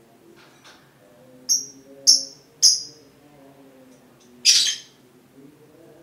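Lovebird calling: three short, sharp, high chirps a little over half a second apart, then a single louder, harsher screech near the end.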